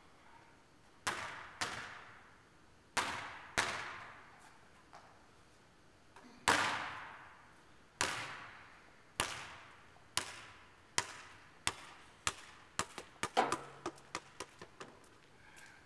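A basketball bouncing on a gym court floor, each bounce a sharp smack that echoes through the big hall. Near the end a quick run of bounces comes closer together and fainter as the ball settles.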